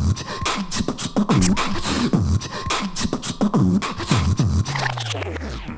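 Beatboxing music track: a rhythmic beat of mouth-made kick drums that drop in pitch, with sharp clicking percussion, and a long falling bass glide near the end.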